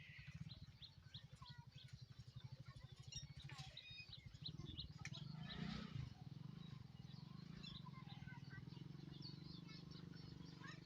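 Birds chirping over a low, fast-pulsing engine hum that turns steadier about halfway through.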